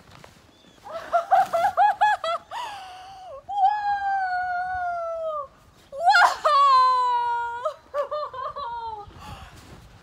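A woman's excited vocal reaction: quick bursts of laughter, then two long, high cries that slide down in pitch, followed by a few shorter exclamations.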